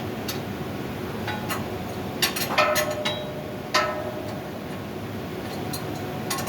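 Metal parts or tools knocking on metal during blower installation: a few light clicks, then a cluster of clanks a little past two seconds in and one more near four seconds, each ringing briefly at a steady pitch, over a steady background hum.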